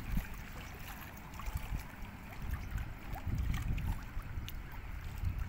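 Small waves lapping against a rocky shore, with an irregular low rumble of wind on the microphone.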